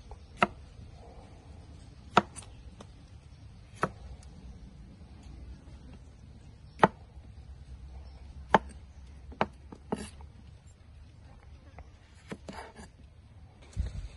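A cleaver chopping through cucumbers onto a thick wooden chopping block: single sharp knocks a second or more apart, then softer, quicker cuts near the end.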